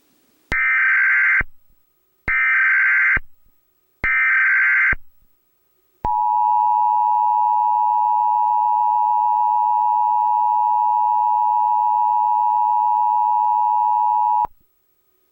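Emergency Alert System tones: three short bursts of SAME digital header data, each just under a second long, then the two-tone EAS attention signal (853 and 960 Hz together) held steady for about eight seconds and cutting off suddenly. The header and attention signal mark the start of an emergency alert broadcast.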